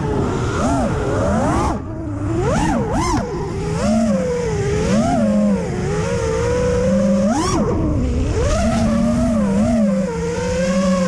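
FPV freestyle quadcopter's brushless motors (T-Motor F40 Pro II, 2400 Kv) whining, the pitch swooping up and down again and again with throttle changes.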